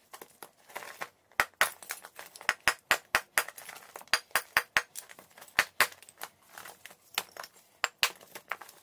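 Lumps of natural chalk being broken apart and handled: many sharp, irregular cracks and clinks as pieces snap and knock against one another.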